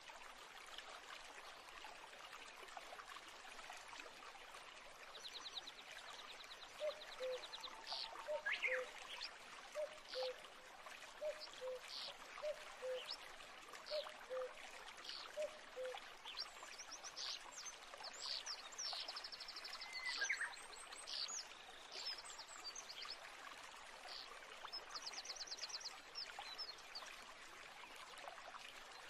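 A running stream with birds calling over it: scattered short chirps, a few rapid high trills, and for several seconds a low call repeated about once a second.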